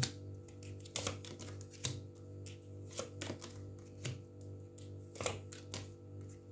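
Tarot cards being handled and set down on a table: irregular light taps and clicks, about one or two a second, over faint background music.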